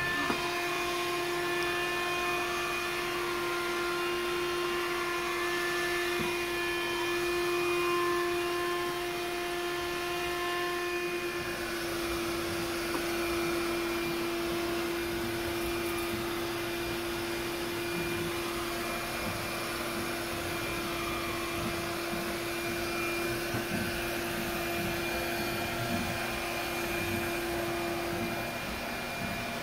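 Bissell Lift-Off cordless stick vacuum running steadily, a constant motor whine over a rushing hiss.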